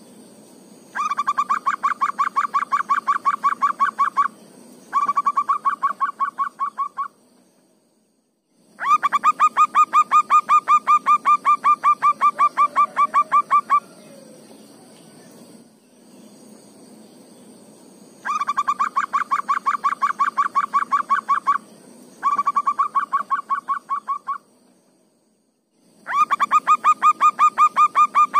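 Zebra dove (perkutut) singing: runs of rapid staccato cooing notes, each run lasting two to five seconds, six runs separated by short pauses.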